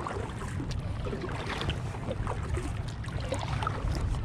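Kayak paddle dipping into the water, with many small, irregular splashes and drips, over a steady low rumble.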